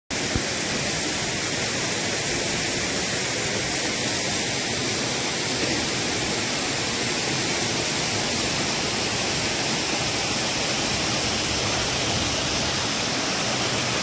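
Steady, even rushing noise that never changes or breaks.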